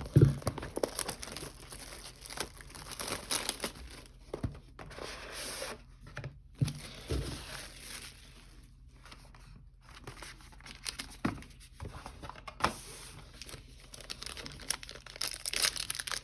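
Packaging on a sealed box of football trading cards being torn open and crinkled, an irregular rustling broken by a few sharp knocks from handling.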